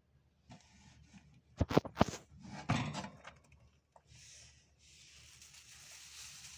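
A few sharp knocks and clatters about two seconds in, then a soft steady rustle: a hamster moving over wood-pellet bedding with a strawberry.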